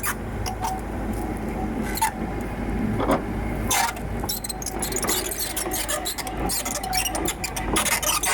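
Komatsu PC78UU excavator running steadily with a low hum, with many sharp clicks and knocks from the machine working; the clicks come thicker from about halfway through.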